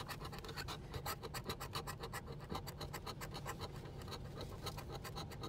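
Scraper rubbing off the latex coating of a scratch-off lottery ticket in quick, even back-and-forth strokes, about six a second.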